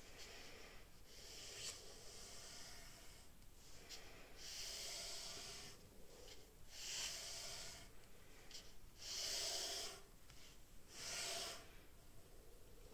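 Pen drawing long strokes across a sheet of paper: several scratchy swishes, each about a second long, with short quiet gaps between.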